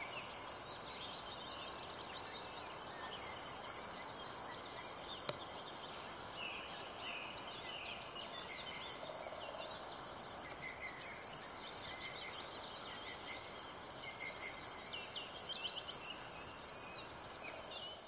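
Dawn chorus of many small songbirds, a dense scatter of short chirps and trills over a steady background hiss. A single sharp click about five seconds in.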